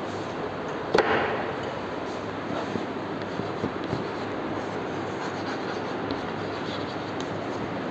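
Steady background noise with a single sharp knock about a second in, followed by faint taps and scratches of chalk writing on a chalkboard.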